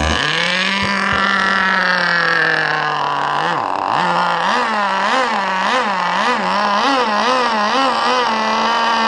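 Vintage K&B glow-fuel (nitro) RC boat outboard, a small two-stroke, catches at once and runs loud and buzzy on the bench with no cooling water hooked up. About three and a half seconds in it briefly sags in pitch and recovers. It then runs with its pitch rising and falling in an even wobble about every half second before steadying near the end.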